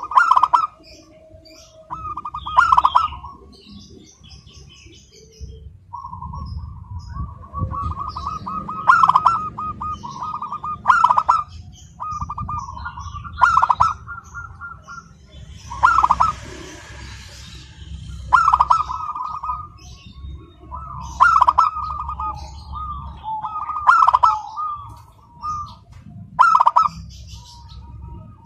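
Zebra dove (perkutut) singing its cooing song over and over: each phrase is a run of rapid stuttering coos that ends in a sharp, loud note, repeated about every two to three seconds.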